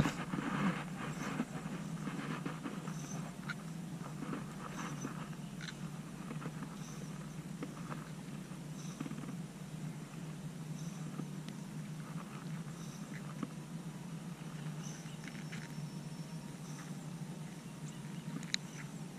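Faint outdoor swamp ambience: a steady low drone, with a small high-pitched animal chirp repeating about once every two seconds.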